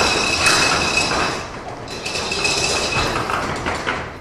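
Chain-operated corrugated steel roll-up door being lowered by its hand chain: the chain clinks and the steel curtain rattles as it rolls down, with a steady high tone running through it. A few sharp knocks come near the end as the door closes.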